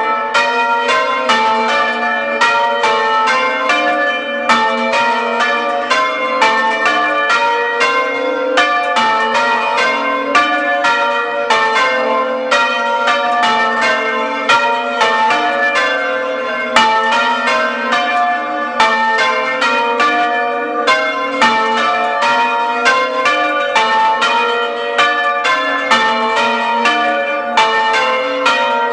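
Church bells change ringing, struck in quick continuous succession, heard close up. They are rung without muffles, so they sound open and joyous.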